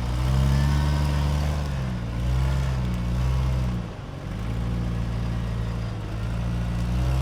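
Off-road vehicle engine revving under throttle, its pitch rising and falling, with the throttle easing off briefly about four seconds in before it climbs again.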